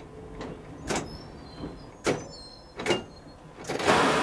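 Inside the cab of a London Underground train, the wheels knock sharply over rail joints and points four times at uneven intervals, over a low running rumble. About three and a half seconds in, a louder, steady rushing noise of the moving train sets in.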